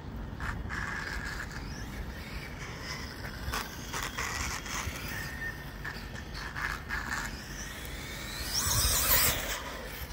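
Losi ProMoto-MX radio-controlled electric motorcycle running on the asphalt track, its motor giving a faint whine, with a louder swell of noise about a second before the end.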